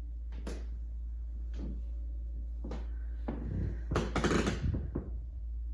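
Footsteps on a house floor, a few soft knocks about a second apart, then a louder creak of the floor under foot about four seconds in.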